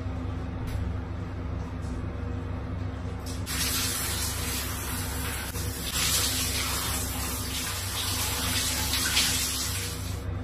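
Shower water spraying as an even hiss; it starts a few seconds in and stops near the end. A steady low hum runs underneath.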